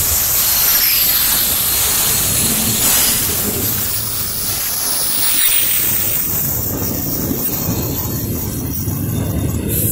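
Double-stack intermodal freight train rolling past: a steady rumble and hiss of steel wheels on rail, with thin squeals that slide in pitch now and then.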